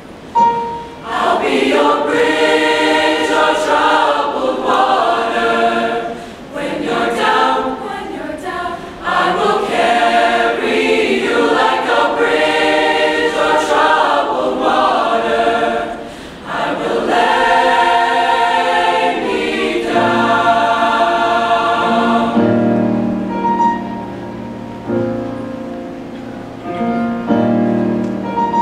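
Large mixed-voice school choir singing a slow song. About twenty seconds in it drops to softer, lower held chords.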